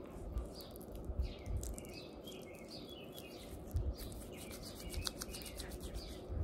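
Clear glitter slime being squished and stretched by hand for ASMR, giving irregular small sticky clicks and pops with soft squelches.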